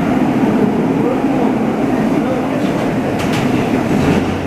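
R160 subway train running on the track, a steady rumble with two sharp clicks near the end.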